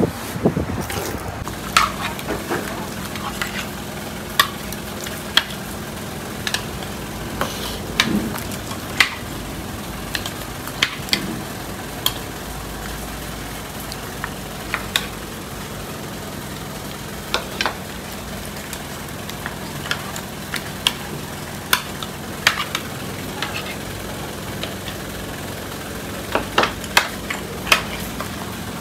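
A metal ladle clinking and scraping against a large curry pot and plates as portions are dished out, sharp clinks every second or two over a steady low hum.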